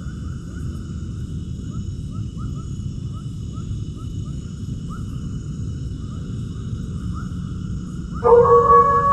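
Animal calls: short rising chirps repeating about once or twice a second over a steady low rumbling noise. A loud held tone with overtones cuts in suddenly near the end.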